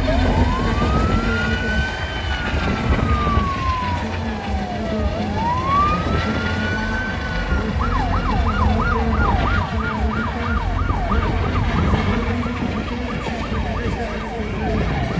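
A siren sounding a slow rising-and-falling wail, switching about eight seconds in to a fast yelp of about two sweeps a second. Under it runs the low, pulsing rotor and engine noise of an Airbus H135 helicopter flying past.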